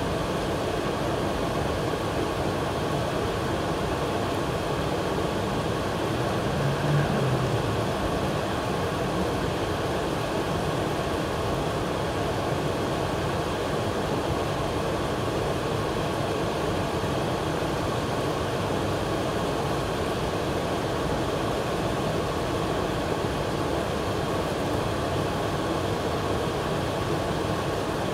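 Steady rushing of a large waterfall, with rain falling. There is a brief low swell about seven seconds in.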